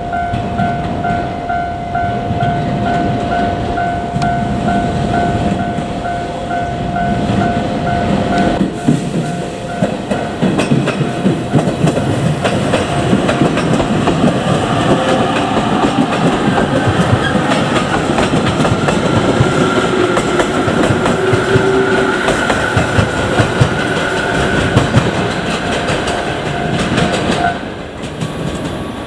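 A level-crossing warning bell ringing in a rapid, steady repeat. About a third of the way in, a JR Kyushu 817 series electric train comes through, its wheels clattering over the rail joints. The bell cuts off a little before the end as the train clears the crossing.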